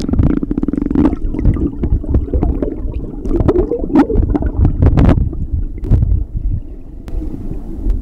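Heard with the microphone underwater: muffled gurgling and churning of pool water as an Appenzeller Sennenhund paddles past, with several sharp knocks through it.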